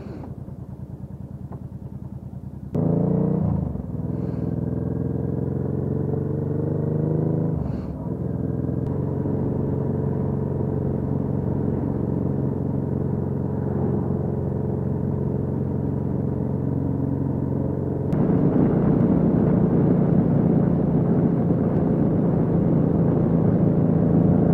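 The V-twin engine of a 2010 Honda NT700V motorcycle, heard from the rider's seat. It runs quietly at low speed, then pulls away about three seconds in, rising in pitch through two gear changes, and settles into a steady cruise. From about eighteen seconds on it gets louder, with more wind rush over it.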